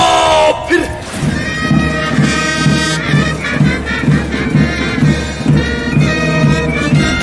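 Military march music: sustained wind-instrument tones over a steady drumbeat at about two beats a second, taking over about half a second in as a sung passage ends.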